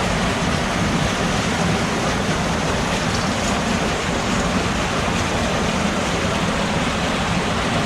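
Steady, loud rush of a spring-fed creek's water pouring through the cave.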